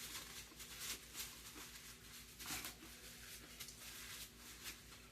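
A man chewing food close to the microphone: soft, irregular crunching and smacking, with the clearest bites about a second in and again about two and a half seconds in.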